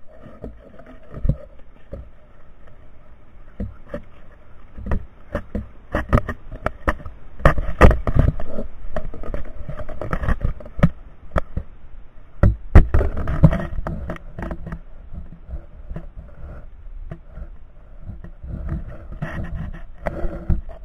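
A vehicle's engine running steadily as it drives over rough ground, with frequent knocks, rattles and scrapes from the vehicle jolting over the bumps.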